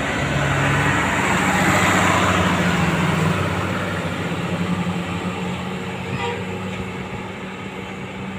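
Diesel engine and exhaust of a large bus passing close by, getting louder to a peak about two seconds in and then fading as it moves away.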